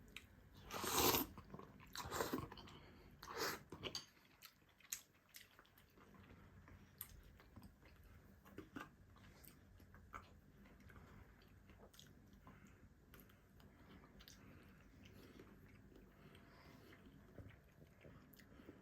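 Eating noises: a few loud bites and chewing sounds in the first four seconds, then faint scattered clicks and taps.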